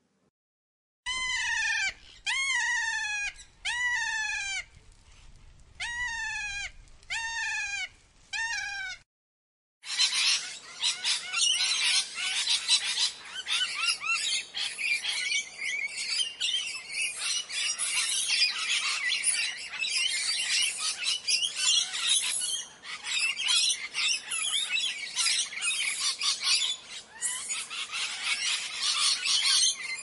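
A parrot gives a string of calls, each one sliding down in pitch, for about eight seconds. After a short pause, a dense chorus of many parrots chattering and screeching runs on without a break.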